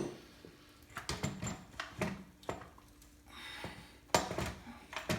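Scattered metal clunks and clanks as a Suzuki RM250 dirt bike's engine is worked loose and pulled out of its frame, with the loudest knock about four seconds in.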